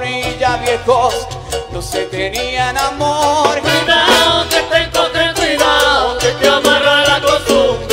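Live salsa band playing, with trumpet and trombone over congas and a steady percussion beat.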